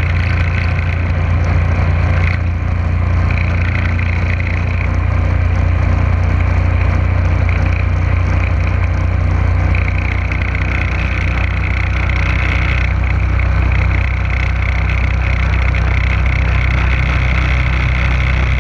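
Boat motor running steadily under way, a loud low drone with water and wind hiss over it; the engine note shifts slightly about fourteen seconds in as the boat slows.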